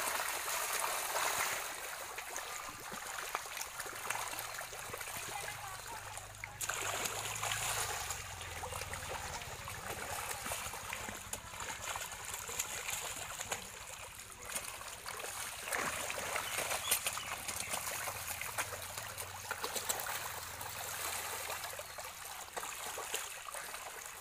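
Continuous splashing, gurgling and crackling of water churned by a dense school of hybrid magur (walking catfish) thrashing at the surface while feeding.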